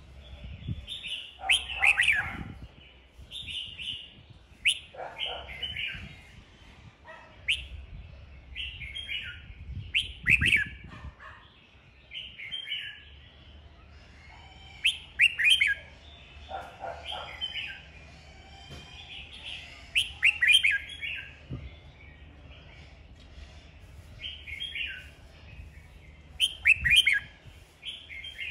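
Caged red-whiskered bulbul singing its fired-up contest song: short, bright warbled phrases every second or two, several with quick falling slurs, and a few sharp clicks between them.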